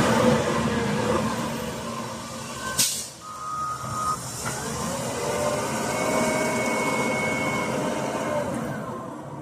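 Heavy CAT diesel machinery running while loading stone. A short, sharp hiss comes about three seconds in, and a few steady whining tones sound over the engine noise after it.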